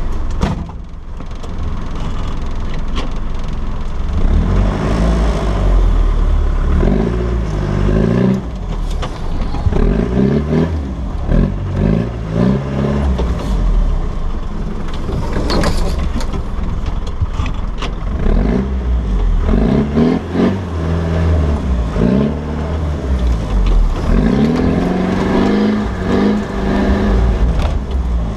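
Land Rover Defender 90's engine revving up and dropping back over and over as the vehicle has another go at a muddy bank, with a low rumble throughout and scattered knocks and clatters.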